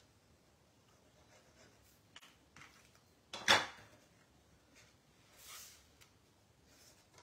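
Card-making handling on a craft table: a few light clicks, one sharp knock about three and a half seconds in, and a soft swish of paper about two seconds later as a cardstock piece is put in place inside the card.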